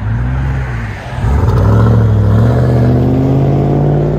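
Chevy Avalanche's 5.3-litre V8 through an aftermarket exhaust with high-flow cats and a Vibrant bottle resonator, accelerating away. The engine note drops briefly about a second in, then rises steadily in pitch and loudness.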